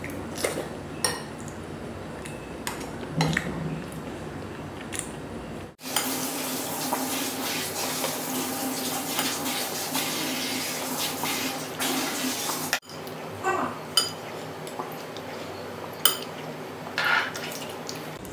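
Close-miked eating of cake with a metal spoon: sharp clinks and scrapes of the spoon on dishes, with chewing. From about six to thirteen seconds in, a steadier stretch of the spoon stirring and scooping through a glass bowl of milk, the liquid sloshing.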